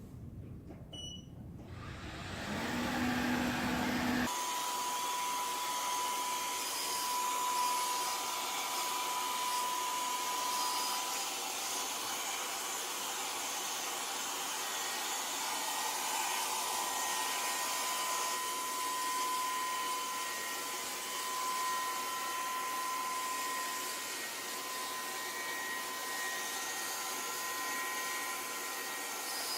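Hoover Rogue 970 robot vacuum starting up: a short beep about a second in, then its suction motor and brushes spin up and run steadily with a high-pitched whine over a hiss from about four seconds in.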